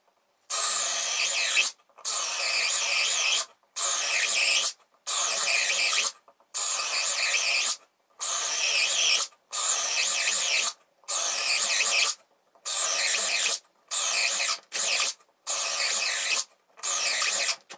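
Parkside Performance 12V brushless cordless drill boring 10 mm holes into wood one after another. It makes about a dozen drilling bursts of a second or so each, with short gaps between, as it runs the battery down hole by hole.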